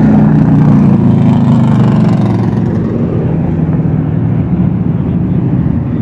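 Vintage stock cars' engines running loud as the cars drive slowly past one after another, the loudest pass in the first couple of seconds.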